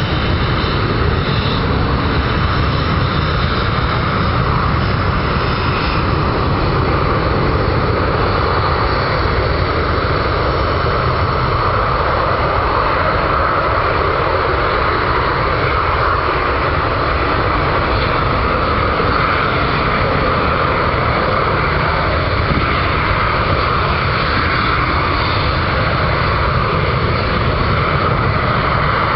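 Engines of two Panavia Tornado jets, each with twin RB199 turbofans, running while the jets stand lined up on the runway. The jet noise is loud and steady, with no rise or fall in pitch.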